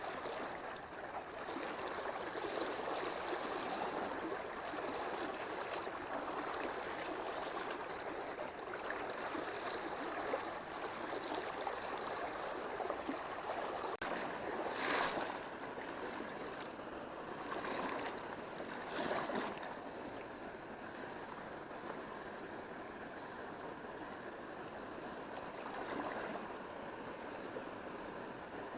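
Mountain stream flowing over rocks, a steady rush of water. A few brief louder swishes or splashes come about halfway through and once more near the end.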